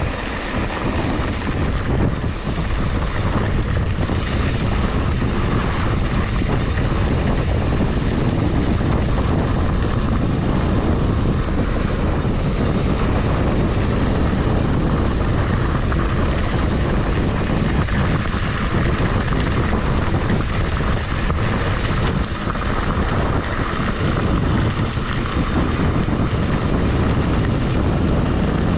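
Steady wind rumble on the microphone of a cyclist's POV camera while riding a mountain bike.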